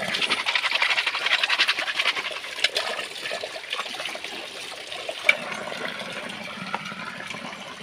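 Water pouring from a pipe spout and splashing onto rock, while a bundle of wooden chopsticks is rubbed together by hand under the stream. The chopsticks make a fast clattering rattle for the first few seconds, then the steady splashing of the water carries on with a couple of single clicks.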